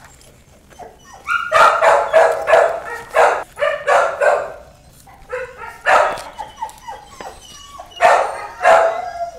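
Puppy barking in quick runs of short, high barks and yips, in three bouts: from about a second in, again near the middle, and near the end.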